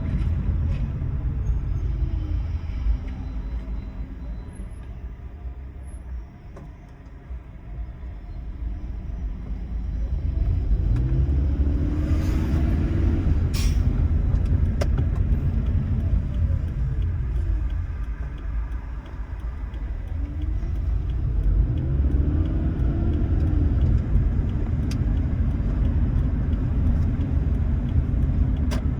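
Toyota Prius driving, with a steady low rumble of road and tyre noise. It fades twice as the car slows and builds again as it picks up speed. A faint whine rises and falls in pitch along with it, and a short hiss comes about twelve seconds in.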